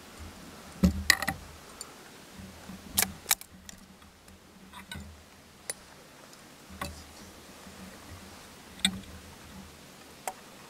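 Close handling noise from a hunter shifting his gear and camo clothing: irregular sharp clicks and knocks, a few in quick clusters near the start, with soft rustling between them.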